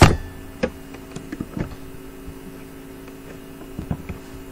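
A sharp click, then a few scattered lighter clicks from a computer keyboard and mouse, over a steady electrical mains hum.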